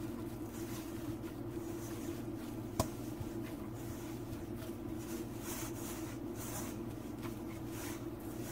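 Soft, irregular squishing and swishing of a flour, yeast, egg and milk dough being kneaded by hand in a stainless steel bowl, over a steady low hum. A single sharp click about three seconds in.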